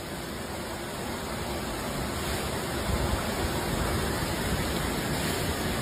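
Steady rush of heavy rain and flash-flood water running down a street, growing a little louder a couple of seconds in.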